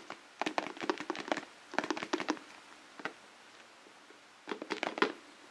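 Hands squeezing and kneading a Play-Doh egg, giving soft sticky crackles and taps in about four short bursts.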